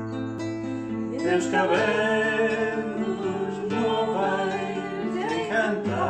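Background music of acoustic guitar, with a singing voice coming in about a second and a half in.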